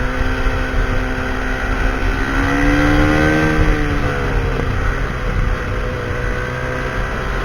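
Husqvarna SMR 511 supermoto's single-cylinder engine running through a full Akrapovic exhaust, pitch holding fairly steady, rising from about two seconds in and easing back down about four seconds in.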